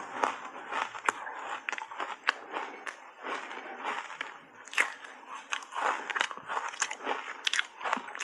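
Shaved ice dusted with matcha powder being bitten and chewed: a dense run of irregular crisp crunches and crackles.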